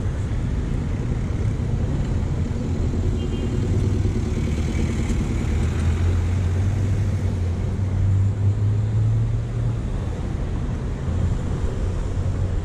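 Street traffic at a busy city intersection, with cars, city buses and motorcycles running through. A low engine drone swells in the middle, then eases.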